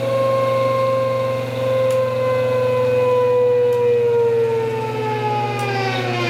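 Spinning ReGenX motor-generator prototype, whining over a steady low hum while current is drawn from it. The whine's pitch sinks slowly, then drops faster near the end.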